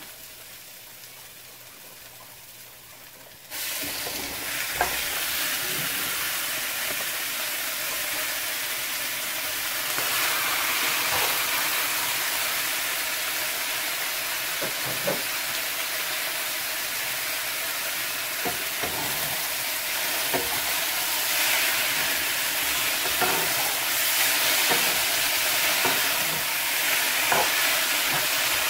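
Raw chicken pieces go into a hot nonstick pan of sautéed curry paste. The faint sizzle of the paste jumps to a loud, steady frying sizzle about three and a half seconds in. Short clacks and scrapes of plastic spatulas stirring the chicken come through it now and then.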